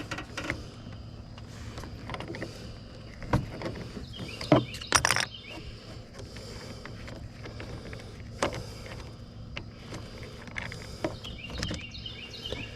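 Metal tools clinking and knocking against the truck's parts several times, the loudest knocks about a third of the way in. A songbird sings a short chirping phrase twice, partway through and near the end, over a steady low hum.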